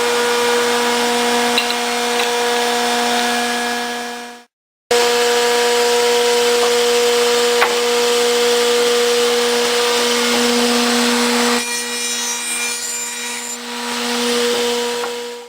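CNC round-end tenoning machine running, its spindle motor humming steadily under the noise of cutters machining wood. The sound cuts out abruptly for about half a second a little after four seconds, and turns quieter with higher-pitched tones for a couple of seconds near the end.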